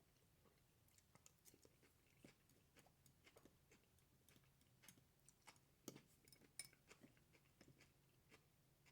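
Faint, quiet chewing with scattered small mouth clicks, a little louder around the middle.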